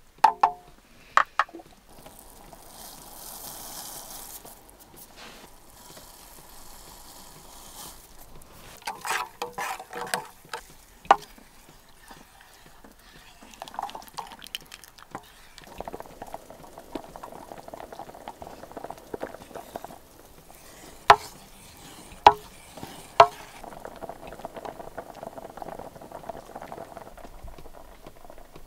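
Wooden spoon stirring thick corn porridge in a pot that is bubbling at the boil. The spoon knocks sharply against the pot: a few times near the start, in a cluster in the middle, and three times about a second apart later on.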